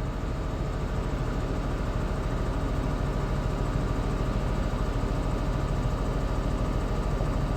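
Farm tractor's diesel engine idling steadily, with an even low pulsing.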